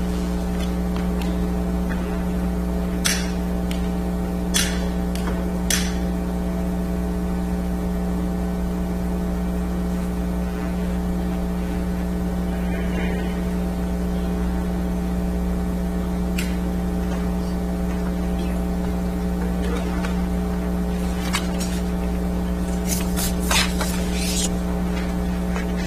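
Steady electrical hum with a low buzzing tone, unchanging throughout, and a few scattered short clicks and knocks, a cluster of them near the end.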